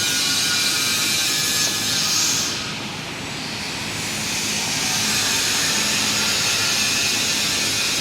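Loud, steady hissing industrial noise that dips for about a second, roughly three seconds in, then returns.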